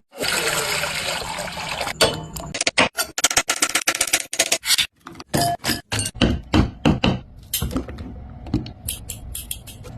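Kitchen cooking sounds: a hissing rush for about the first two seconds, then a run of irregular clinks, knocks and scrapes of utensils against pots and dishes.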